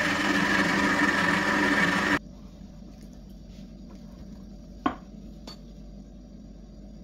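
A small electric motor hums steadily and cuts off abruptly about two seconds in. Then there is quiet room noise with a couple of light clicks of kitchenware.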